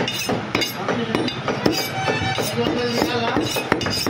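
Heavy butcher's knife chopping mutton on a wooden chopping block: a run of sharp knocks at an uneven pace.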